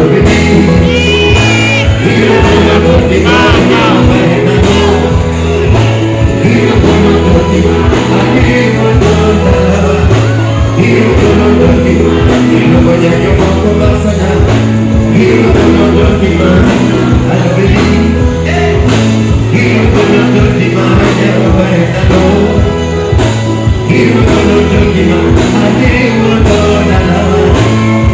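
Live band music over a PA system, with a singer's voice above a steady, repeating bass line; loud throughout.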